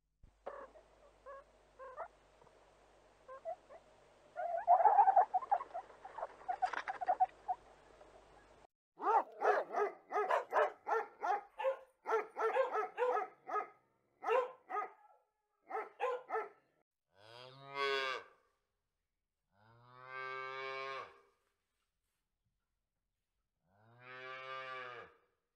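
A sequence of animal calls. First a meerkat gives short chirps and then a louder stretch of chattering calls. Next a dog barks in a quick series, and then a calf moos three times, each moo long and drawn out.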